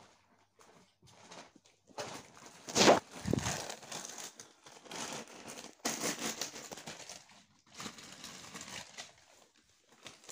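Irregular rustling and crinkling as items are handled and packed, mixed with knocks and rubbing of the handheld phone; the loudest burst comes about three seconds in.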